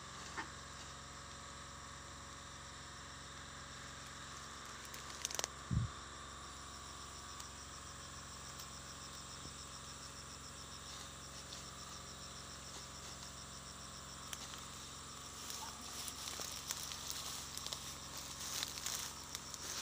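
Insects chirping steadily in the undergrowth, with a fast pulsing trill in the middle stretch. About five seconds in there is a sharp click followed by a low thump, the loudest moment, and near the end some rustling and crackling of vegetation.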